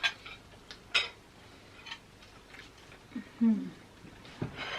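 Cutlery clinking against plates while eating: a few sharp separate clinks, the loudest about a second in, with a short murmured vocal sound about three seconds in.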